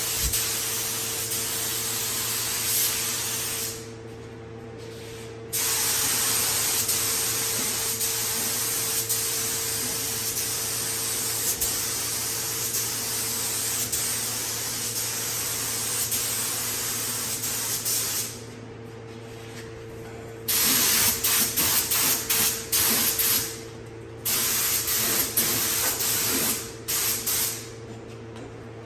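Air spray gun hissing as paint is sprayed: two long passes, then a run of short bursts near the end as the trigger is squeezed and released. Underneath, the steady hum of an 8-gallon Harbor Freight air compressor keeping up with the gun.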